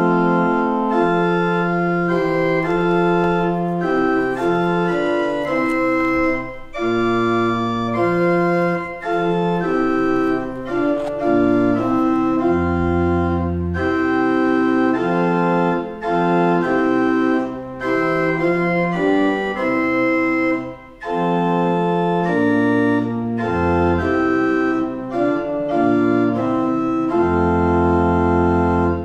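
Church pipe organ playing a slow hymn tune in full sustained chords over a deep pedal bass, in several phrases with short breaths between them, and stopping cleanly on a final chord at the end.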